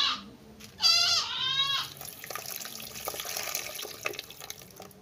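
A goat bleats once, about a second in. Then liquid is poured from a tin through a plastic sieve into a clay pot of palm-oil sauce, splashing steadily for a couple of seconds before it tails off.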